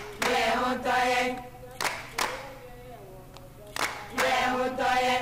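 A group of women singing together without instruments, with a few hand claps. The voices hold long notes, drop away for a couple of seconds in the middle, and come back near the end.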